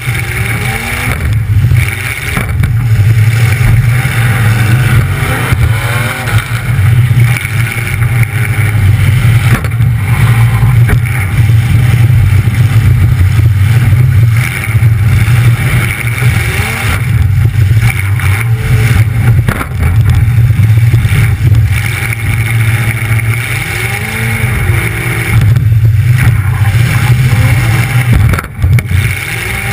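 Demolition derby car's engine running loud through open exhaust pipes that come straight up through the hood, revving up and falling back over and over as the car drives.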